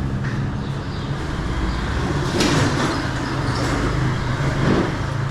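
Sliding gate rolling along its track, with a louder scrape about two and a half seconds in, over a steady low hum.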